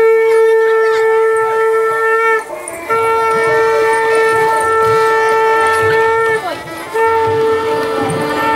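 Conch shell (shankha) blown in long, steady blasts on one pitch: three held notes, broken by short pauses for breath about two and a half and six and a half seconds in.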